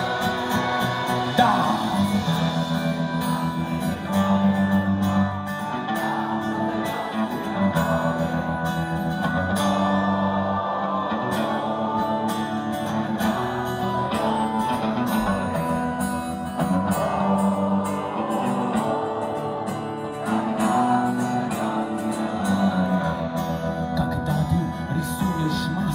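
Live folk-rock band playing with guitars, keyboard and drums, and a voice singing over them.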